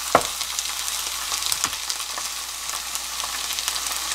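Ground pork and seasoning pastes sizzling steadily in a hot nonstick frying pan, with a sharp click right at the start and a fainter one about a second and a half in.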